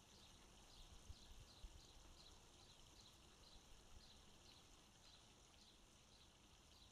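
Near silence: faint outdoor background, with a faint high chirp repeating evenly about twice a second and two soft low thumps between one and two seconds in.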